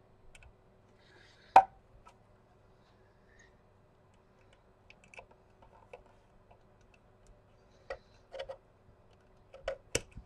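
Sparse clicks and knocks of a hard plastic device case being handled and worked on with a small screwdriver, with one sharp click about one and a half seconds in and a cluster of knocks near the end, over a faint steady hum.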